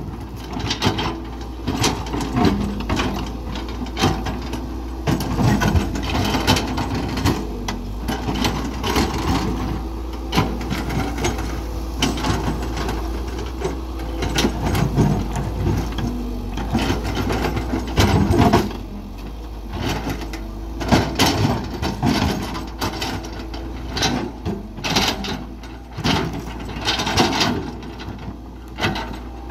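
Caterpillar 312BL excavator's diesel engine running steadily, with frequent irregular knocks and scrapes as the bucket digs into rock and soil.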